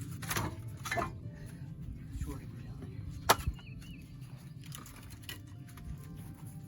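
Split firewood pieces, oak and hickory, knocking against each other as they are handled and dropped into a firewood bundler. There are about five sharp wooden knocks, the loudest a third of the way in, over a steady low rumble.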